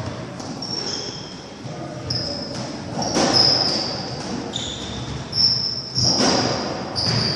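Racketball rally: the ball struck by rackets and hitting the court walls, with the loudest hits about three and six seconds in, and sports shoes squeaking sharply on the sprung wooden floor many times over.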